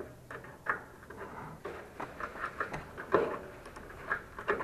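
Light, irregular clicks and taps of a wrench working the top-plate nut of a scooter's front shock absorber, with a slightly louder knock about three seconds in.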